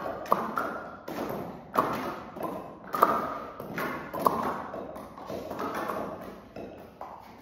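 Repeated mouth and lip sounds during a Nejang lip exercise: a string of sharp pops, each trailing off briefly, about one every second or so with smaller ones in between.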